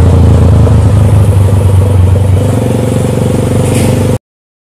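Motorcycle engine running loudly while riding along the road, cutting off abruptly about four seconds in.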